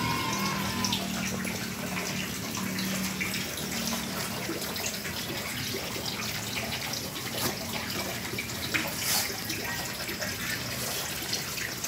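A steady rushing noise, like running water, with a few faint short knocks over it.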